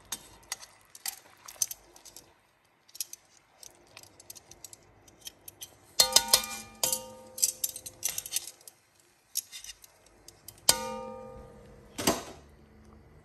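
Metal tongs clicking and scraping against an enameled cast-iron pot while turning pieces of fish in their sauce. Two sharper knocks, about halfway through and again near the end, leave the pot ringing briefly.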